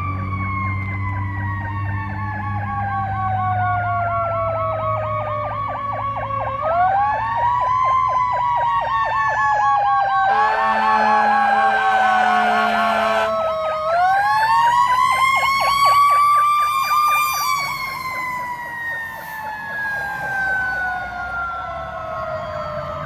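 Fire truck sirens on a code 3 response: a siren wailing slowly down and back up twice, with a faster warbling yelp over it. An air horn blasts for about three seconds around ten seconds in.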